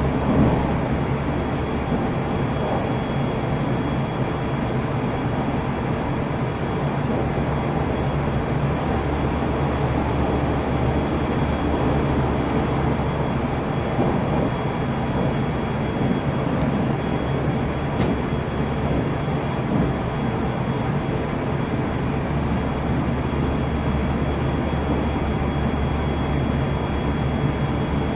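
JR Central 373 series electric train running steadily at speed, heard from inside the car: an even rumble of wheels on rail with a low hum and a faint high steady tone.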